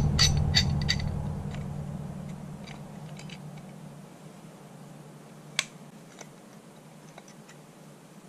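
Metal clicks of a pipe wrench being set on and worked against a brass pipe fitting: a quick run of about five clicks in the first second, then scattered lighter ticks and one sharp click a little past halfway. A low hum starts with the clicks and fades away over the first four seconds.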